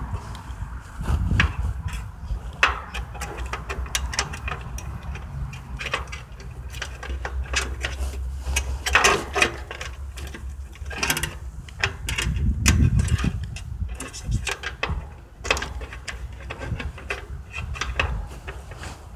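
Irregular clicks, knocks and scrapes of flexible metal electrical conduit and its fitting being handled and pushed into the electrical compartment of an outdoor air-conditioning condenser, over a steady low rumble.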